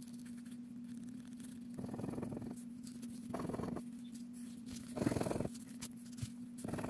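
Pink plastic scratcher scraping the coating off a scratch-off lottery ticket in short rasping strokes, each about half a second long, with pauses between them.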